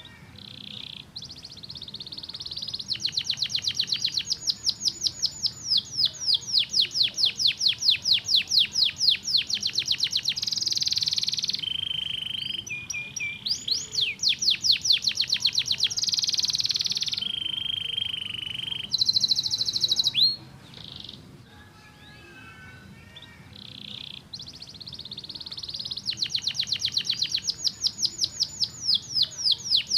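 Domestic canary singing: long, fast trills of rapidly repeated notes in changing phrases. After about twenty seconds the trills give way to a quieter stretch of soft calls, then build again near the end.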